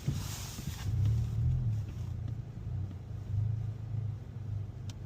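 2021 Mazda 3 Turbo's turbocharged four-cylinder running at low speed while parking, heard as a low rumble inside the cabin, swelling briefly about a second in and again partway through.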